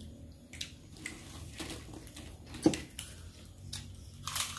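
Quiet sounds of people eating at a table: chewing and a few light clicks and taps of food and utensils on plates, the loudest a little past the middle.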